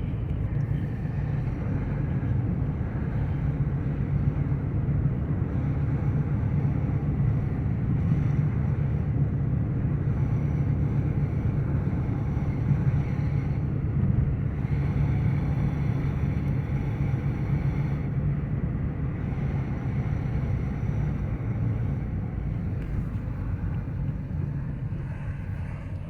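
Vehicle engine running steadily while driving along, a continuous low hum with wind rushing over the microphone.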